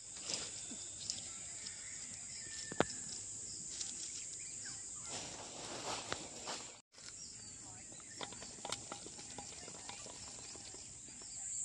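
Steady high-pitched drone of insects outdoors, with faint scattered rustles and ticks from dry leaves as mahua flowers are picked up off the ground by hand. The sound drops out for a moment about seven seconds in.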